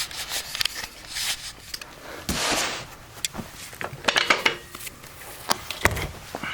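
Camera being unclamped and lifted off its tripod: handling noise of scattered sharp clicks and a brief rubbing rustle, with a quick cluster of clicks about four seconds in.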